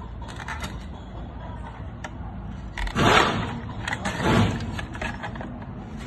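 A car engine running steadily with a low rumble, with two short louder noises about three and four seconds in.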